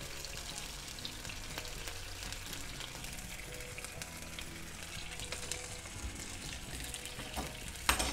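Floured basa fillets frying in a pan of white wine, a steady sizzle with fine crackling. A short, sharp clatter comes near the end.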